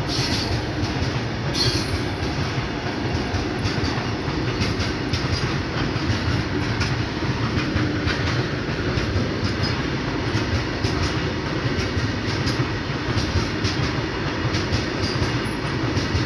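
Covered goods wagons of a long Indian Railways python freight train rolling past close by: a steady rumble of wheels on rail with clattering over the rail joints.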